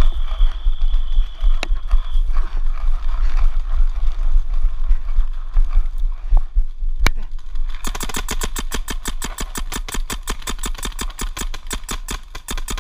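Paintball marker firing a fast, even string of shots, about ten a second, starting about eight seconds in and lasting some five seconds. Before it, rumbling wind and handling noise on a moving helmet camera's microphone.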